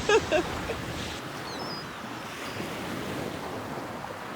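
Steady rush of a waterfall, an even hiss-like roar of falling water. A small bird chirps briefly about one and a half seconds in.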